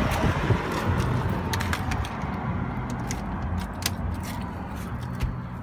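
Scattered light clicks and taps over a low steady rumble, from someone handling things at an open car door and reaching into the cabin.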